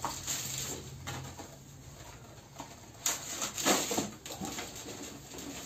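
Light clicks, knocks and rustles of wooden marking gauges and their packaging being handled and set down, with a sharp click about three seconds in followed by a short cluster of knocks.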